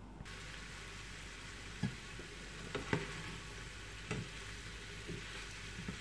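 Chopped turkey and vegetables sizzling in a frying pan while being stirred with a spatula, which knocks against the pan about five times. The sizzling starts suddenly just after the beginning.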